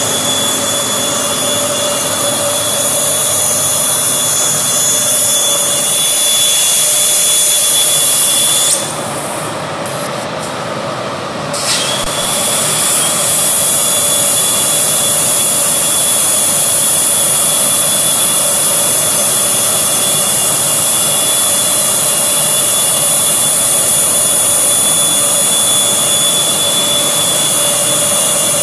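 CNC plasma cutting machine's torch cutting a steel plate: a loud, steady hiss with a high whine. The arc sound drops out for about three seconds around nine seconds in and starts again with a click.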